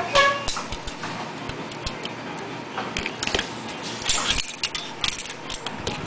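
Irregular sharp metallic clicks and taps from the parts of a Yamaha Rhino 700 Dr. Pulley Hi-T clutch being handled and worked with pliers.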